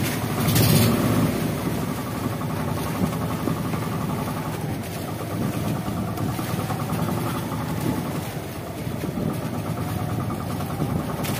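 Small outrigger fishing boat's engine idling steadily, with an even fast pulse.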